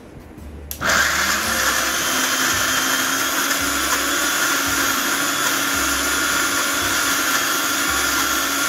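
Electric mixer grinder switched on about a second in: its motor spins up and then runs steadily, grinding soaked chana dal with ginger, garlic, green chillies and a little water into a paste.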